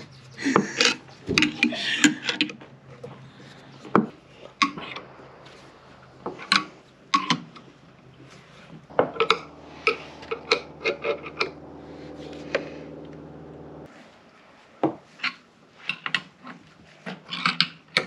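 Steel eye screws being twisted into a pine frame, a screwdriver shaft levered through the eye: scattered sharp metallic clinks and rubbing of the threads in the wood. A steady hum runs for about five seconds in the middle.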